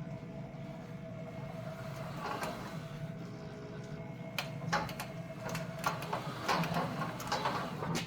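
Cordless drill running slowly, turning a reel to rewind MIG welding wire. About four seconds in its steady whine stops, and a run of crackles and sharp clicks follows.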